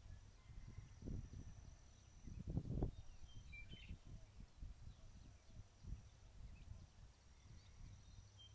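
Faint outdoor ambience: wind buffeting the microphone in uneven low gusts, strongest about two and a half seconds in. A short bird chirp comes a little before four seconds in and another near the end.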